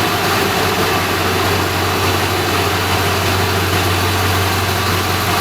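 Engine idling steadily: a loud, even rumble with a constant low hum.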